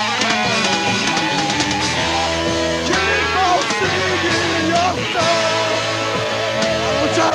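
Rock band playing a bluesy song live, an instrumental stretch with no singing: guitar, bass and drums, with a lead line of bent, wavering notes.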